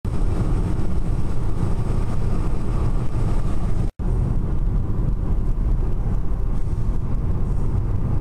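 Steady rumble of a car driving on a highway, heard from inside the cabin, with a brief cut-out about four seconds in.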